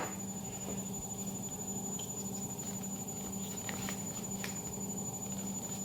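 Steady low room hum with a few faint light clicks.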